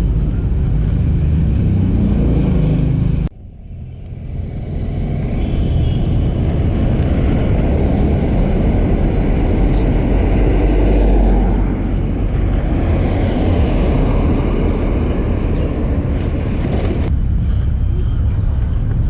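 Road traffic: cars running past in the street as a steady rumbling noise. About three seconds in the sound drops off suddenly, then swells back up to its loudest around the middle as a vehicle passes.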